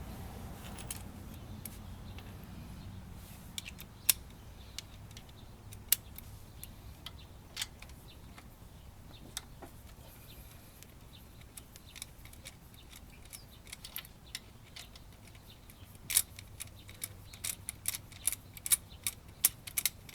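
Sharp metallic clicks and clinks of a socket wrench and bolt being worked loose, scattered at first and coming quicker near the end.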